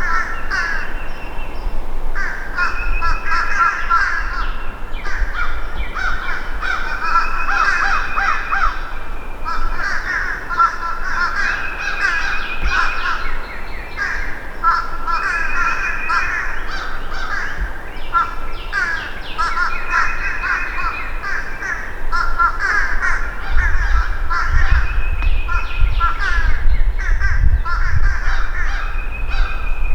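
Birds calling loudly and continuously, many short repeated calls overlapping in groups every couple of seconds. A low rumble joins in about two-thirds of the way through.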